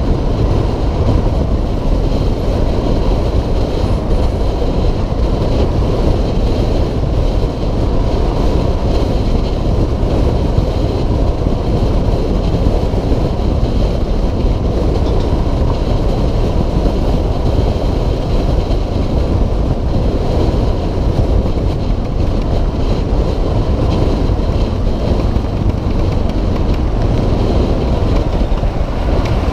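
A 2006 Suzuki DR650SE's single-cylinder engine running at a steady cruising speed, mixed with heavy wind on the microphone and road noise, all at an even, constant level.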